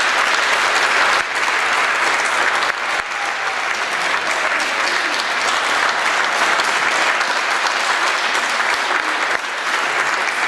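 Audience applauding: a dense, steady crackle of many hands clapping, dipping briefly a few times.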